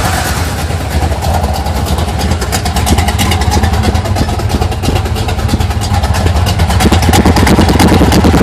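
Small-block Chevy 350 V8 with a Summit K1107 lift cam running through Flowtech headers and Thrush turbo mufflers, idling rough with a fast, even train of exhaust pulses; it grows louder near the end. The recording is heavily clipped and distorted.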